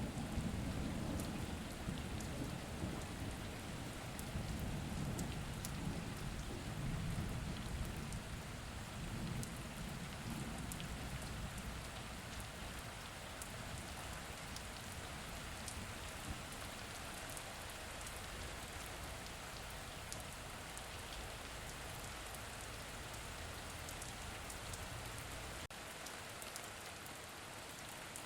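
Steady rain falling, with a low rumble of thunder over the first several seconds that slowly fades away.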